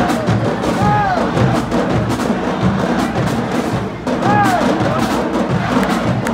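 Marching band drumline playing a cadence: low bass-drum hits under fast, sharp rim and stick clicks. A voice calls out briefly twice over the drums, about a second in and again after about four seconds.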